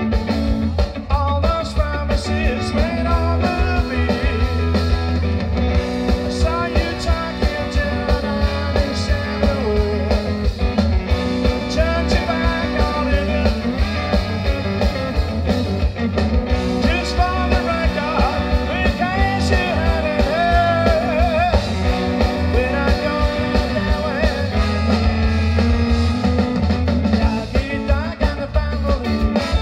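Live ska band playing at full volume: a horn section of trombone, saxophone and trumpet playing over electric guitar, bass guitar and drum kit with a steady upbeat rhythm.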